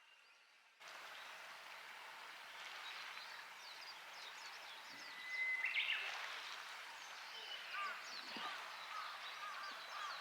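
Outdoor ambience with several birds singing and chirping over a faint steady background noise, starting about a second in. There is a short rising whistle about halfway through, and a run of repeated short notes fills the second half.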